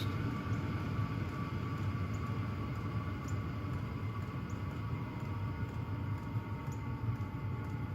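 Hcalory diesel heater running steadily, its blower and burner giving a low hum. A faint whine slowly drops in pitch as the heater ramps back down toward its lowest setting.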